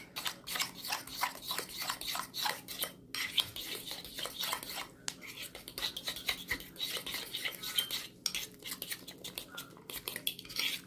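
Metal spoon beating an egg into oatmeal and banana batter in a bowl: fast, steady clinks and scrapes of the spoon against the bowl, with a few brief pauses.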